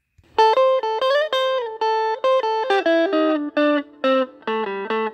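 Music: a guitar playing a melody of single notes, held notes at first and quicker ones in the second half.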